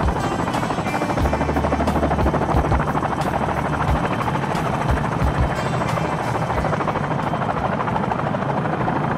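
DJI Phantom quadcopter's motors and propellers buzzing steadily in flight, heard close up from the camera on board.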